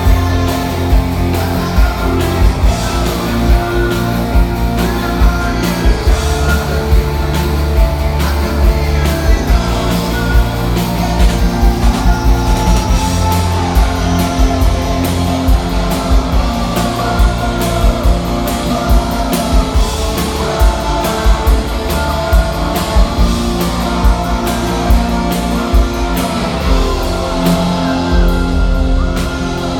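Rock band playing live, with drums keeping a steady beat under bass and electric guitars.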